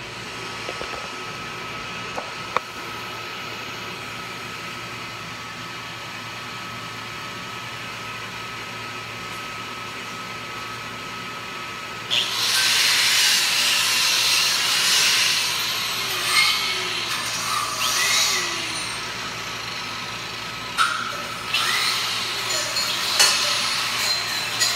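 Steady shop hum, then about halfway in a handheld angle grinder starts up and buffs rust off steel, a loud grinding hiss that swells and eases with the pressure, dropping off briefly a few seconds before the end and then resuming.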